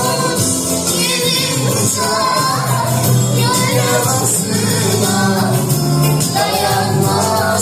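A song: a voice singing a melody over an instrumental backing with a steady bass line.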